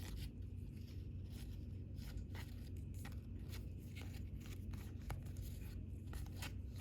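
Baseball cards being handled and flipped through by hand: faint scattered ticks and short paper scrapes over a steady low hum.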